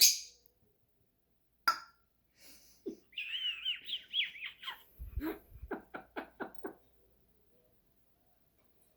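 African grey parrot whistling a warbling phrase that glides up and down in pitch, then making a quick run of about five clicks. A single sharp click comes earlier, and a dull thump sounds just before the run of clicks.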